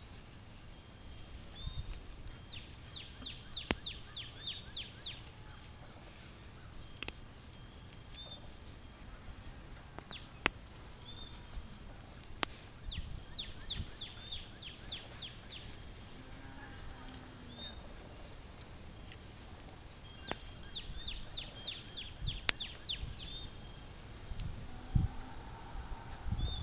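A songbird singing the same phrase over and over, a quick run of short, high, falling notes repeated every few seconds. Under it are low rustling and a few sharp clicks.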